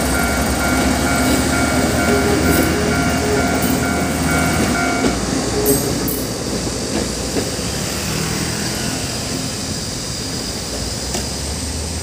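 Level-crossing warning bell ringing in a rapid, repeating electronic ding while the last cars of a diesel multiple unit rumble past over the rails. The bell stops about five seconds in, and the train's rumble then slowly fades away.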